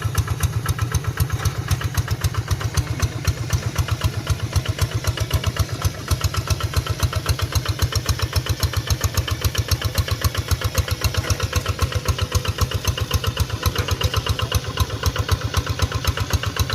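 Single-cylinder diesel engine of a paddy-field hand tractor running steadily, its firing strokes heard as a rapid, even pulse.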